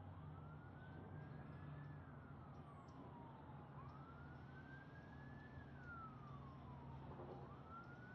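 Faint wail of an emergency-vehicle siren, its pitch rising slowly and then falling again about every four seconds, over a low steady hum.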